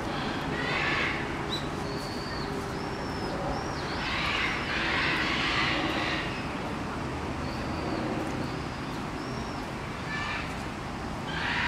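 Outdoor ambience: a steady low rumble, like distant traffic or an aircraft, with a small bird giving short high chirps in two runs of three or four, and a few brief noisy bursts.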